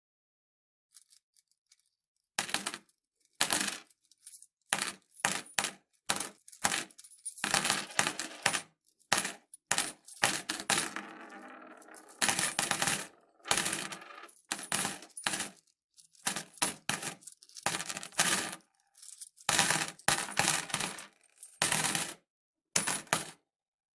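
Coins dropping and jingling in a series of separate short takes, each a bright metallic clink or jangle, with a longer jingle of several coins about ten seconds in.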